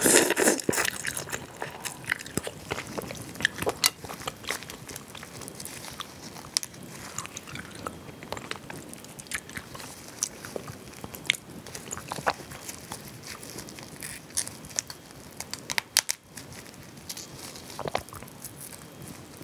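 Close-miked eating of mala (spicy Sichuan) crayfish: a string of short cracks and crunches as the shells are broken and peeled, with sucking and chewing at the mouth, loudest near the start.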